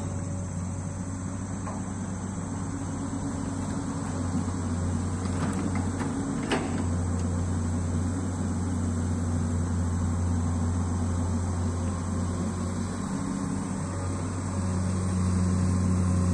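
Diesel engine of a Komatsu amphibious long-arm excavator running steadily as the machine digs and swings its arm, with one sharp knock about six and a half seconds in.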